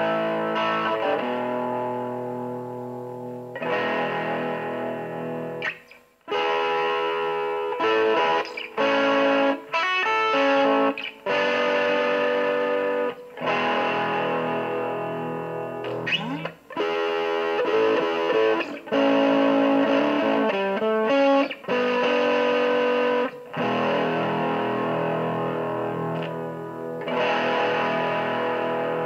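Overdriven electric guitar, a Fender Stratocaster played through a Matamp C7 head, a Barenthien BB7 attenuator and a Marshall 1965A 4x10 cabinet with Celestion G10 speakers, close-miked. Distorted chords are left to ring and decay, broken by short stops, with a couple of quick picked runs.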